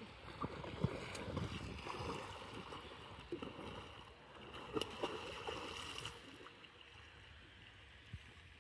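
Water splashing and sloshing around a board as a rider lying on it moves through calm water, in irregular small splashes that thin out after about six seconds.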